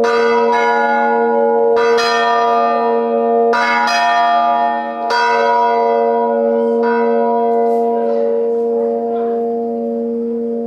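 Hand-rung church bells swinging and striking in an uneven peal, several strokes in the first seven seconds. After the last stroke the bells' ringing hum carries on and slowly dies away.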